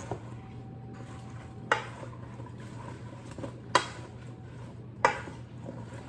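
Wooden spoon stirring wet sliced apples in a stainless steel mixing bowl, with three sharp knocks of the spoon against the bowl, over a steady low hum.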